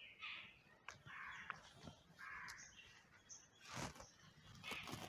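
Faint crow caws, a few short raspy calls in the first half, with two soft thumps near the end.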